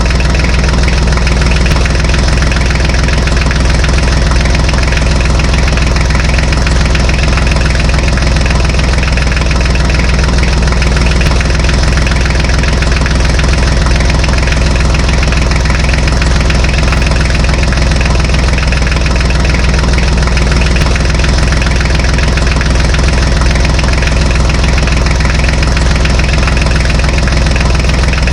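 Engine idling steadily, a low even hum with no change in speed.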